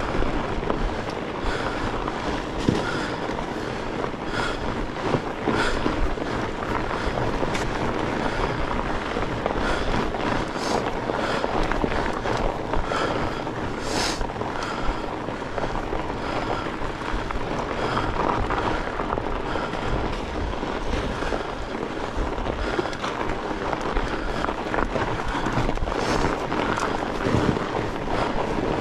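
Fat bike riding over a frozen, rutted snow trail: a steady rush of tyre and wind noise, broken by frequent crackling clicks and knocks. One sharper click stands out about halfway through.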